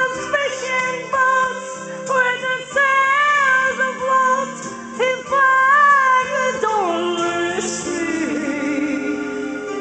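A singer performing over a backing track, holding long notes with vibrato; the melody slides down to lower notes in the second half.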